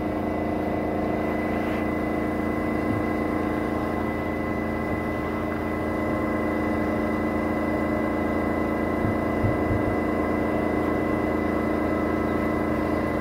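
An engine running steadily at an even pitch, a constant mechanical hum.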